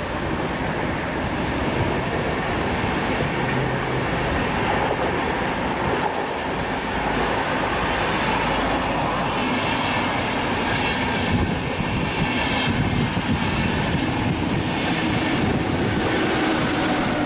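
A VR InterCity train of double-deck coaches, pushed by an Sr2 electric locomotive at the rear, passing close by: a steady loud rumble of the wheels running on the rails. Faint high ringing tones come in over the second half.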